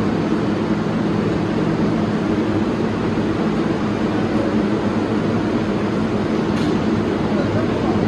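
R188 subway train standing at the platform with its doors open, its air-conditioning and on-board equipment running in a steady hum.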